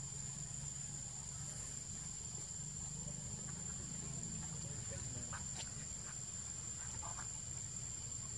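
Outdoor ambience: a steady high-pitched insect drone over a low rumble, with a few short faint chirps about five and seven seconds in.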